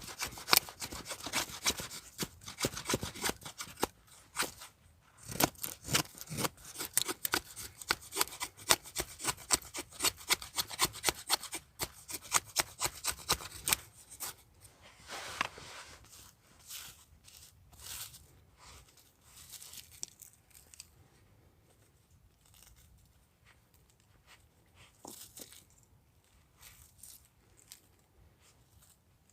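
A blade working wood by hand, cutting or shaving with quick rasping strokes. After about 14 seconds it slows to scattered scrapes and small knocks.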